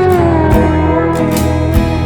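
Relaxing instrumental background music: a note that glides slowly downward over sustained bass, with a few light percussive hits.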